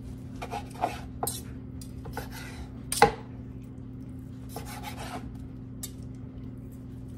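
Chef's knife slicing through tender roasted chuck roast on a wooden cutting board: short scraping strokes and knocks of the blade and fork against the board, with one sharper knock about three seconds in. A steady low hum runs underneath.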